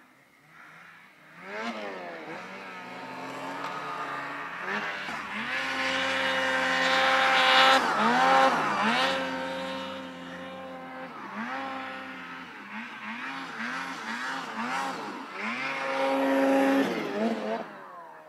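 Snowmobile engine revving hard while carving through deep powder, its pitch climbing and falling with the throttle, with a run of quick revs in the second half.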